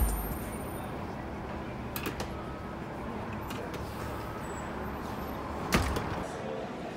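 Steady low street background with a distant traffic hum, a couple of light clicks about two seconds in and a sharper knock near six seconds in.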